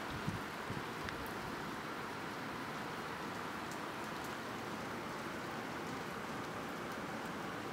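Steady rain falling during a thunderstorm, an even hiss throughout, with a couple of brief knocks in the first second.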